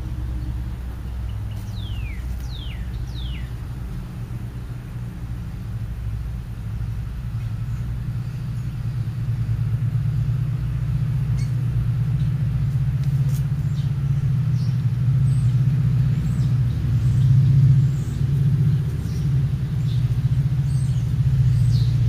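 A steady low motor rumble that grows louder through the middle. Three quick falling bird chirps come about two seconds in.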